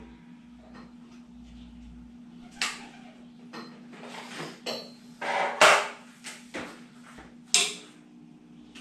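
Several sharp clicks and knocks from handling gear, the loudest about halfway through: a switched power strip is worked and a phone on a small tripod is set down on a metal amplifier's top. A faint steady hum runs underneath.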